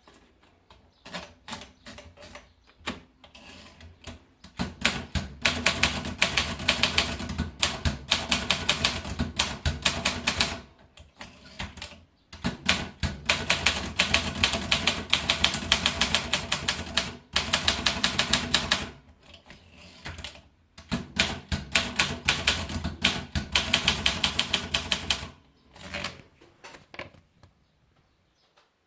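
Optima Elite typewriter being typed on: a few slow keystrokes, then three long runs of fast typing with short pauses between, ending with a few scattered keystrokes.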